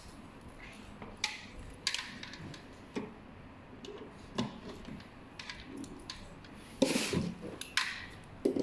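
A power cord and plastic plug adapter being handled: scattered light clicks and knocks, with a louder rustling burst about seven seconds in.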